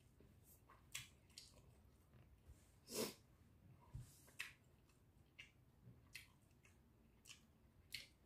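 Faint mouth sounds of a man chewing food: soft lip smacks and clicks about once or twice a second, with a short louder breath about three seconds in.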